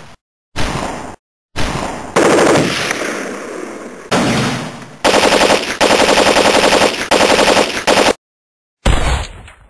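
Gunfire sound effects cut together: a few loud separate shots with dead silence between them, then long rapid bursts of automatic fire, and a single shot ringing away near the end.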